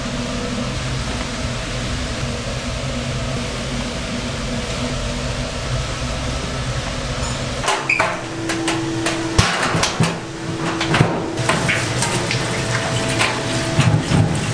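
Noodle-shop kitchen work: a steady machine hum, then, from about eight seconds in, a run of sharp knocks and clatter over a humming tone.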